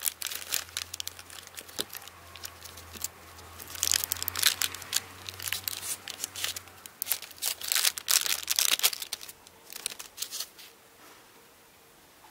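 Plastic packaging bag crinkling and rustling in irregular bursts as a monopod is pulled out of it, dying away near the end.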